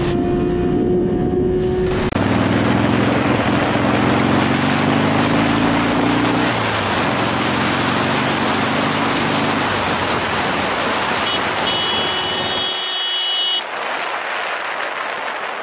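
Motorcycle riding on the road with heavy wind noise on the microphone, its engine note climbing, dropping and climbing again as the bike accelerates. Near the end the engine sound falls away and only the wind rush remains.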